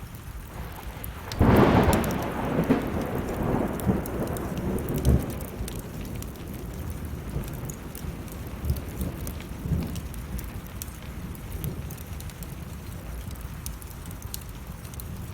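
A thunderclap about a second and a half in, rumbling away over the next several seconds, over steady rain and the sharp crackle of a burning wood fire.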